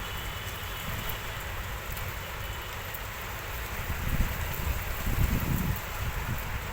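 Steady rain falling in a windstorm, with gusts of wind buffeting the microphone as low rumbles, strongest about four to five seconds in.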